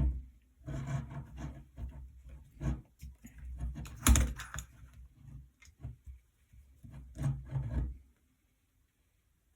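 A DIY camera clamp with a ball head is handled and tilted by hand, giving irregular rubbing and scraping with knocks. The sharpest knock comes about four seconds in, and the handling stops about eight seconds in.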